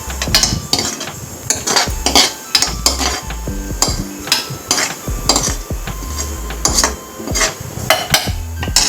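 A metal spoon stirring and scraping in a cooking pot, clinking against the metal many times at an uneven pace.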